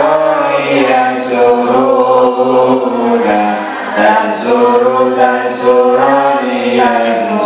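Male voices chanting Arabic grammar verses in unison to a simple melody, each note held and stepping up and down.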